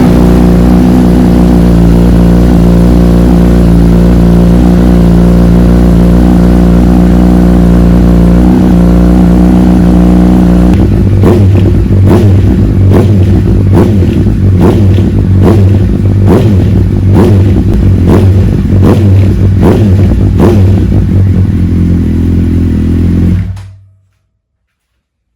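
A vehicle engine running loudly and steadily. About halfway in it changes to a rhythmic pulsing with sharp surges a bit faster than once a second, then cuts off abruptly near the end.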